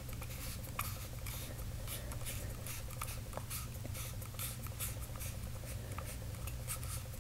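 Faint scratching and scattered light clicks of a metal lightsaber hilt being handled, its threaded sections twisted by hand, over a low steady hum.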